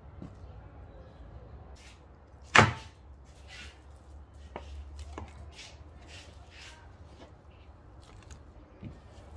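One sharp knock about two and a half seconds in, with a few lighter knocks and brief scraping and rustling of hands at work around it.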